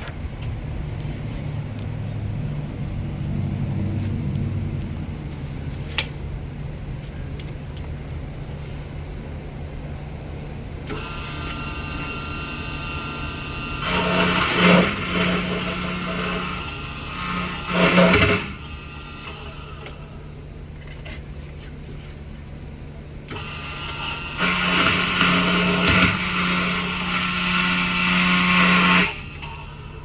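A power saw cutting stainless-steel bimini tubing to length, with a high metallic ringing over harsh cutting noise. It comes in two long stretches, one about a third of the way in and one near the end, over a steady machine hum.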